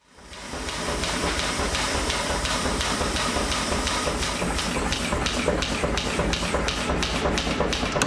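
Power hammer running with a steady hiss, striking red-hot steel between its dies in a regular rhythm that grows sharper from about halfway, roughly three blows a second.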